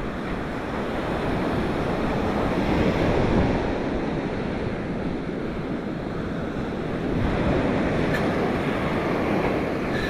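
Surf breaking and washing up the beach, with wind buffeting the microphone. The wash swells twice, about three seconds in and again about seven seconds in.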